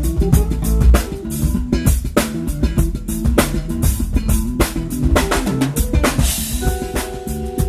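Live band playing an instrumental at full volume: a drum kit with driving bass drum and snare hits under a moving bass line, a cymbal wash about six seconds in, and a held higher note from another instrument near the end.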